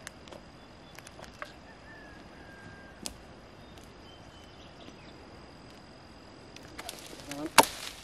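Faint outdoor quiet with a steady high tone and a few small crackles, then near the end a few sharp blade strikes as a khukuri chops dry branches, the loudest close to the end.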